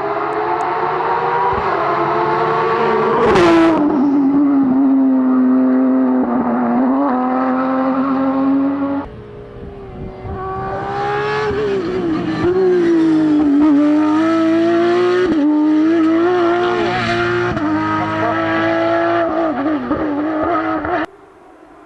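Porsche 992 Rally GT flat-six engine at full throttle on a rally stage, rising in revs with sharp drops at gear changes and lifts, and a brief quieter spell near the middle. It cuts off suddenly near the end.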